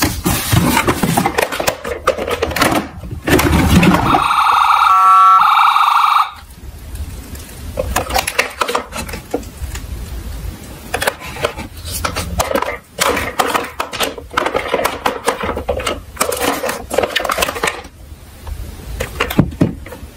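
Miniature toy cars clattering and clicking as they roll down a slope. About four seconds in, a loud electronic siren tone pulses for about two seconds.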